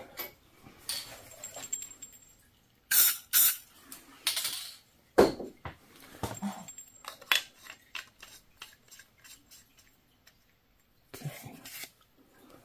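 Irregular clicks, knocks and light clinks from handling a handgun-style CO2 less-lethal launcher and its parts, with a few louder knocks in the first half and a short quiet stretch later.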